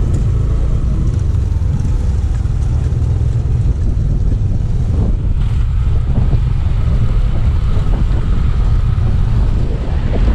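Wind buffeting the microphone while riding a Yamaha Aerox 155 scooter, a steady low rumble with the scooter's single-cylinder engine running underneath.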